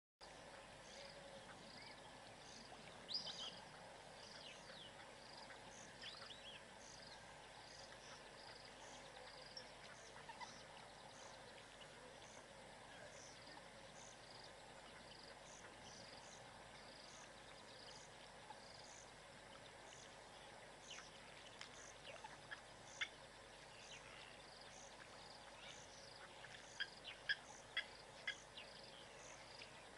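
Faint natural ambience: a cricket chirping steadily about once a second, with a few short bird chirps about three seconds in, around twenty-three seconds, and in a quick cluster near the end.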